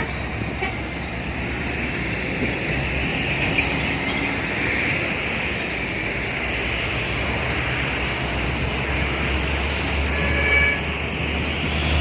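Heavy road traffic passing at a junction: diesel trucks and coaches running by, with a deep engine rumble that builds in the last few seconds as a heavy vehicle passes close.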